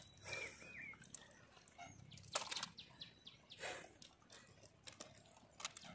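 Quiet pondside sound: faint bird chirps near the start, then a few short rustling splashes of wet leaves and shallow water as a crab is handled among the weeds.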